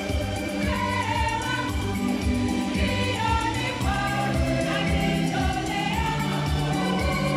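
A choir sings a gospel song over a steady bass beat.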